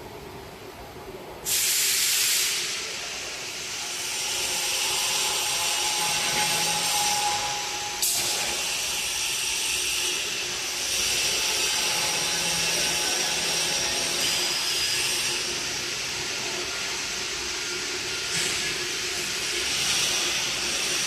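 Double scissor parking lift lowering under hydraulic release: a hiss starts suddenly about a second and a half in and runs on steadily as the platform comes down, with one sharp click about eight seconds in.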